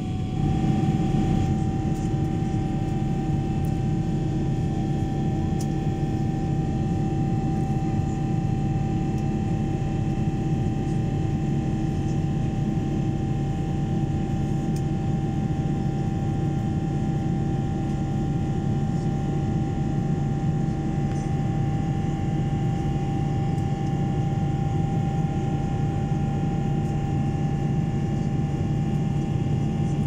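Steady noise of an airliner's jet engines heard inside the cabin at a window seat beside the engine: a low hum with a steady whining tone over it.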